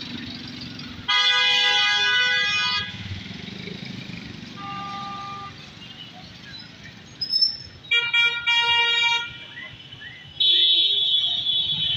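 Busy road traffic running steadily with vehicle horns honking: a long loud blast about a second in, a shorter fainter two-note horn near the middle, then two more loud held blasts later on.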